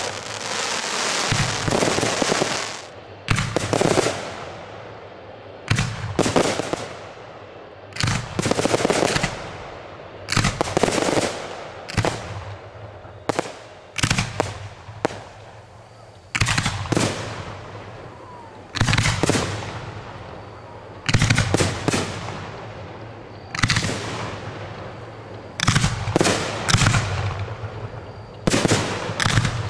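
Aerial fireworks display: a dense crackling over the first three seconds, then a string of sharp shell bursts, one or two a second, each trailing off in an echo.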